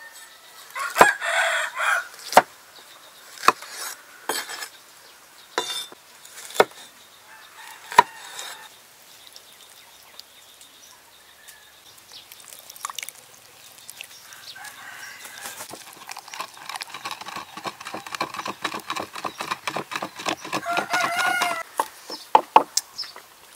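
Sharp, irregular chops of a heavy cleaver on a wooden board, then a wooden pestle pounding chilli and garlic in a wooden mortar, about five quick strikes a second and growing busier. A rooster crows about a second in and again near the end.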